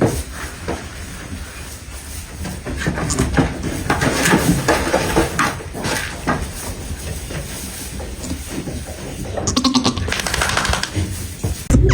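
Baby goats bleating, several short calls one after another, with a louder run of calls near the end.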